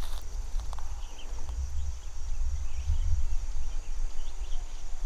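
Outdoor countryside ambience: a steady high insect drone with a few short bird chirps, over a low, uneven rumble of wind on the microphone.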